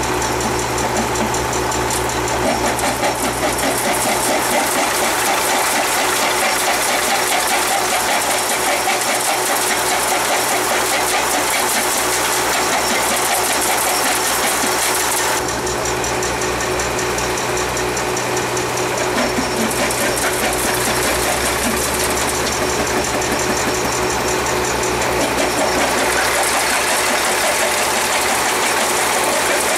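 Caterpillar diesel engine running steadily under load, driving a vintage Lokomo jaw rock crusher, with a dense clatter of crushed stone pouring down the chute. The higher clatter dips for a few seconds about halfway through.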